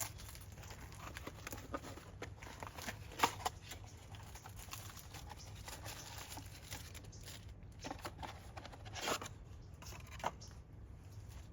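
Faint handling noises: scattered light clicks and rustling over a steady low hum, with a sharper knock about three seconds in and another about nine seconds in.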